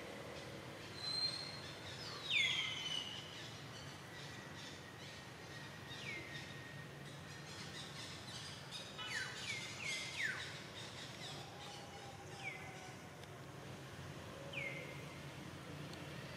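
Birds calling: a short high note sliding downward, repeated every two to four seconds, with brief clusters of calls about two and ten seconds in, over a steady outdoor background hum.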